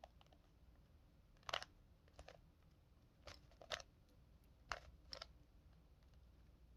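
Rubik's Cube layers being twisted by hand during a scramble: faint, scattered plastic clicks, several in quick pairs.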